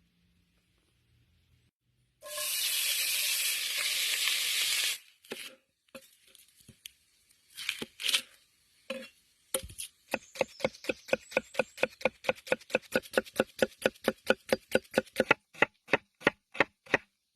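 A steady hiss for about three seconds, then a few scattered knocks, then a knife chopping quickly and evenly on a cutting board, about five strokes a second.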